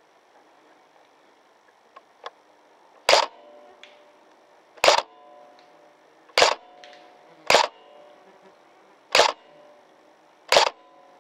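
A&K SR25 airsoft electric gun (AEG) firing single shots: six sharp cracks, the first about three seconds in and then one every one to two seconds, each with a short ringing after it.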